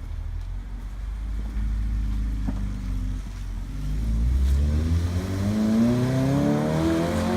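Car engine running with a low rumble, then accelerating hard about halfway through, its pitch climbing steadily as it revs up through a gear.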